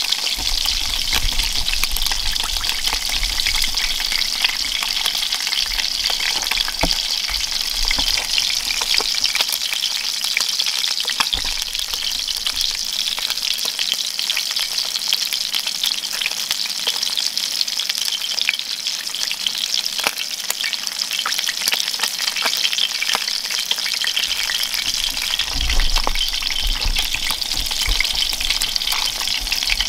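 Trout fillets frying in hot oil in a cast-iron skillet: a steady sizzle with many small crackles and pops.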